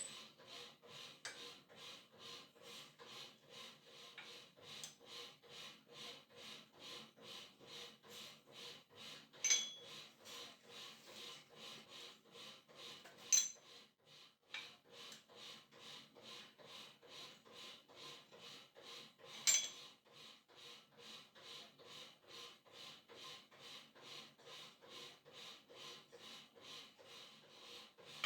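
Steady back-and-forth rubbing by hand, about two or three strokes a second, with three sharper clicks along the way.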